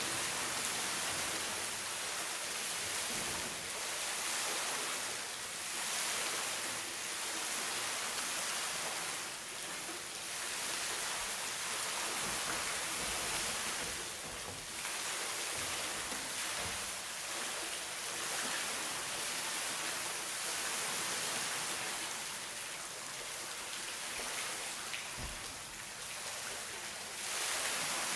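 Steady hiss of running water, swelling and easing gently in loudness every few seconds.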